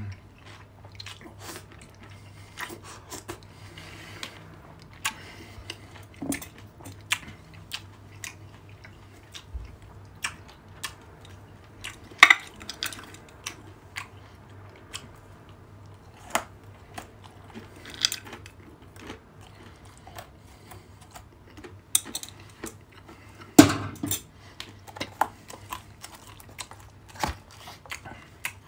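Close-up eating sounds: wet chewing of orange segments, then crunching of mixed nuts taken by hand from a glass jar. Many sharp clicks and taps run throughout, with two louder knocks, one about twelve seconds in and one about twenty-four seconds in.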